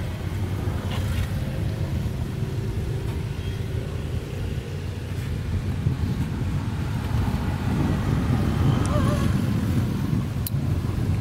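Steady low outdoor rumble, growing a little louder in the second half, with a short wavering call about nine seconds in and a couple of sharp clicks near the end.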